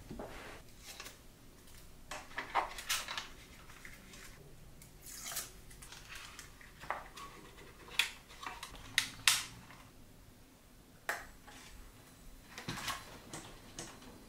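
Irregular small plastic clicks, taps and short scrapes as hands handle and fit parts of a 3D-printed plastic RC car body shell.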